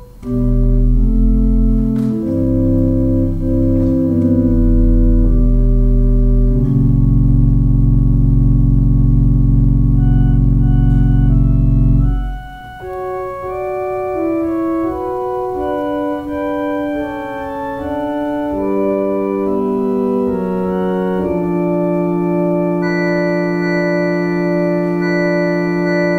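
Organ music playing slow, sustained chords. It begins full with deep bass notes, which drop out about halfway, and a lighter, higher passage follows.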